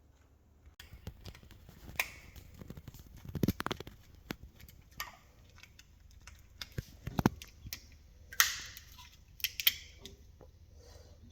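Irregular clicks and knocks with some rustling: a DC wall switch being handled and worked. The loudest clicks come about 2 s, 3.5 s, 7 s and 8.5 s in.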